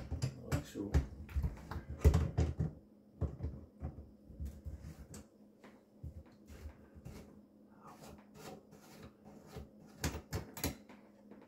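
Clicks, knocks and clinks of a wrench and chrome sink drain trap fittings being loosened and handled, in a cluster over the first few seconds, sparse in the middle, and clustering again about ten seconds in.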